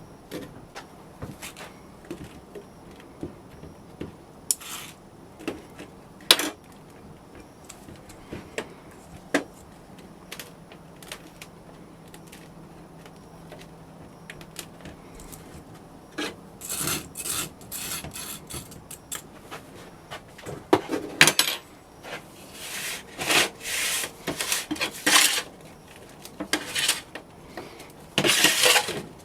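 Casting sand being worked by hand in a moulding flask: scattered light taps at first, then from about halfway a run of repeated, louder scraping and rubbing strokes as the sand is packed and scraped.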